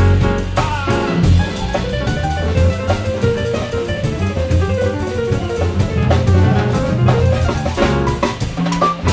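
Jazz piano trio playing live: grand piano, upright double bass and drum kit together, with a busy walking bass line and steady cymbal and drum strokes under the piano.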